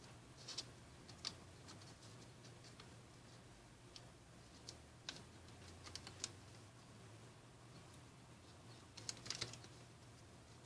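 Paper being creased and handled while folding origami: scattered short, faint crinkles and taps as fingers press the folds against the table, with a quick cluster near the end, over a low steady hum.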